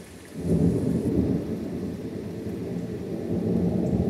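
Thunder rumbling, breaking in suddenly about half a second in and rolling on loud and low, over steady rain.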